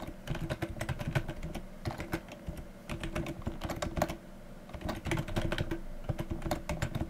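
Typing on a computer keyboard: quick, irregular key clicks in short runs, with brief pauses about two and four seconds in.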